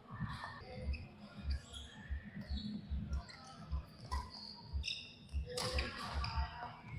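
Badminton rally: players' feet thudding and court shoes squeaking on the court mat, with a racket striking the shuttlecock about five and a half seconds in.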